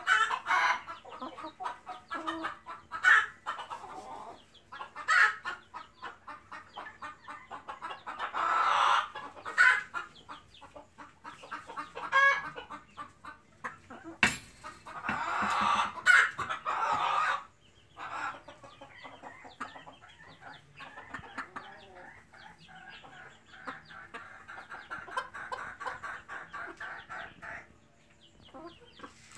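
A flock of silkie chickens clucking, with many short calls throughout and two longer, louder bouts of calling about eight and fifteen seconds in. A sharp knock comes just before the second bout.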